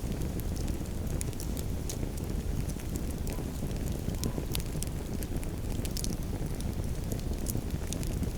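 Campfire burning, with irregular sharp crackles and pops of the burning wood over a low, steady rush.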